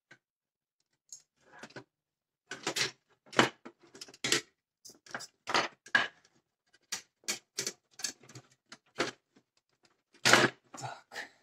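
Irregular clicks, scrapes and rustles of hands working the wires inside an open plastic power-strip housing, with the loudest click about ten seconds in.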